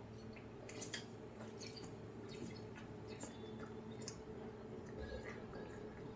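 Faint gulps and liquid sounds of beer being chugged from a glass bottle in one long drink, with scattered small clicks over a faint steady hum.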